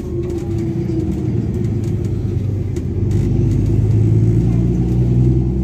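Diesel bus engine and exhaust running under way, heard from inside the passenger cabin, with a low drone that grows louder about three seconds in as the bus pulls harder. The exhaust is loud.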